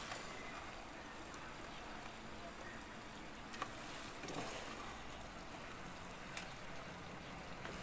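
Sticky rice cake (biko) sizzling with a steady low hiss in the pot on a low flame, with a few light taps and scrapes of a wooden spatula against the pot and tub as it is scooped out.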